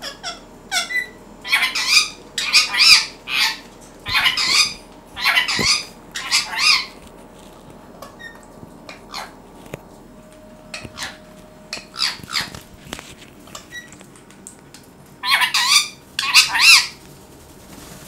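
Indian ringneck parakeet squawking and chattering at its own reflection in a mirror. A run of loud harsh squawks fills the first seven seconds, a few short quieter chirps follow, and two more loud squawks come near the end.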